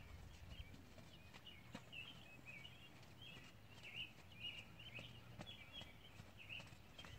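Faint, continuous twittering of a songbird in quick squiggly notes, over soft, scattered hoof thuds of a horse trotting on arena sand.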